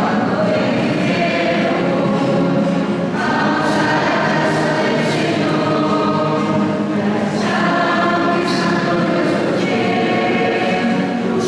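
Church choir singing a hymn, several voices holding long notes that change every second or two.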